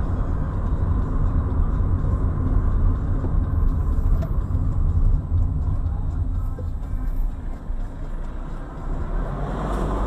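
Car driving: a steady low rumble of engine and road noise, heard from inside the cabin.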